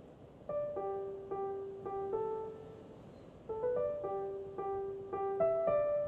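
Background piano music: a slow melody of single notes in two short phrases, with a brief lull between them.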